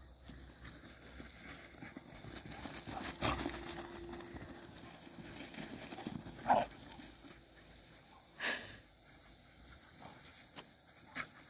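Dogs running through tall grass: rustling and footfalls, with a few short, sharp sounds, the loudest about six and a half seconds in.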